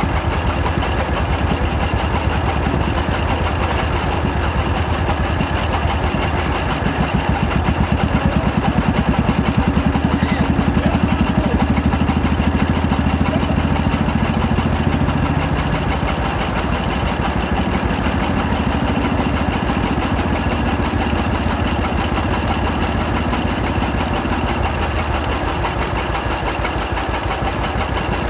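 Tractor engine running steadily with a rapid even beat, a little louder from about 8 to 14 seconds in.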